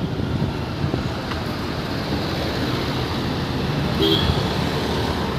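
Steady rumble of road traffic mixed with wind on the microphone, with a brief high tone about four seconds in.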